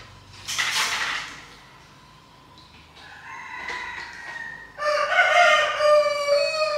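A rooster crowing: one long held call in the second half, with a weaker call leading into it. A short hiss sounds about half a second in.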